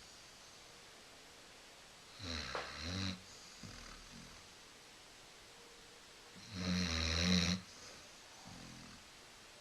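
Basset hound snoring in its sleep: two loud snores about four and a half seconds apart, each followed by a fainter breath.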